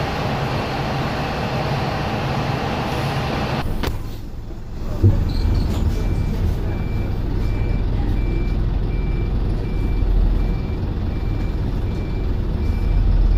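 The dense noise of bus engines running gives way, after a knock about five seconds in, to the low running of an Optare Solo bus's diesel engine heard from inside the cabin. Over it a reversing beeper sounds steadily, about two beeps a second, as the bus reverses off its stand.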